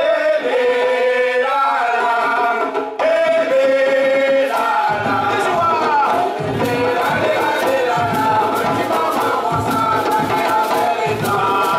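Gwoka music: singing in long held notes, joined about five seconds in by ka hand drums beating a steady rhythm under the song.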